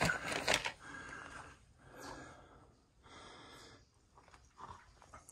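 A hiker breathing hard, with three long breaths, after sharp scuffs and knocks of shoes or poles against rock in the first second.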